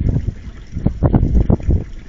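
Wind buffeting a security camera's built-in microphone: a low rumble with irregular crackling pops that thicken about halfway through.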